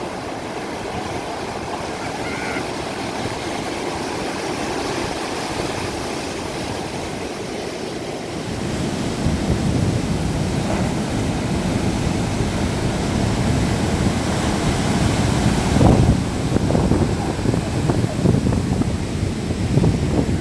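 Large ocean waves breaking and white water rushing up the beach: a steady rushing hiss. About eight seconds in it grows louder and rougher, with wind buffeting the microphone.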